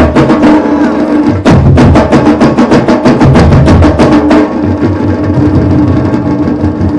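Percussion-led music for a Chhau and Paika martial dance: rapid drum strokes over a steady held tone. The drumming breaks off briefly about a second and a half in, then falls away about four seconds in, leaving the held tone with softer beats.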